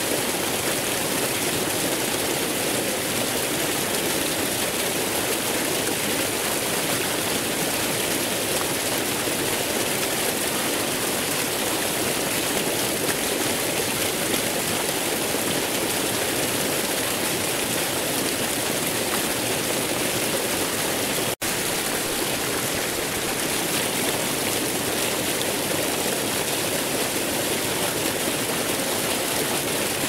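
Waterfall: steady rushing, splashing water with no change in level, except for a momentary dropout about two-thirds of the way in.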